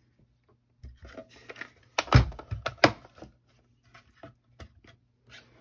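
A run of knocks and clatter, loudest two to three seconds in, as a small hand-crank die-cutting machine is brought over and set down on a desk, with a few lighter taps after.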